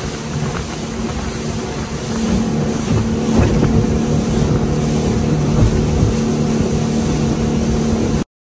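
Motorboat engine running steadily at speed, with water spray splashing and rushing past. It gets louder about two seconds in and cuts off suddenly near the end.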